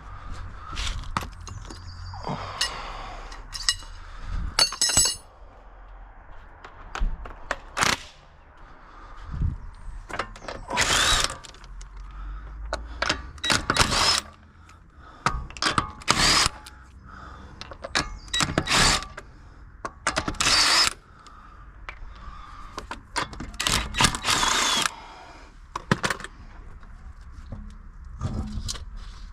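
Impact wrench on the car's wheel nuts, run in about a dozen short bursts of half a second to a second each, with knocks and clanks of handling in between.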